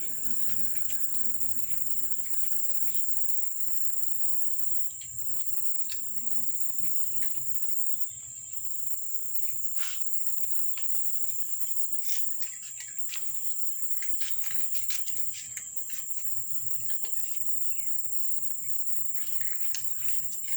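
Insects trilling steadily in one high, unbroken note, with scattered faint clicks and a few short chirps.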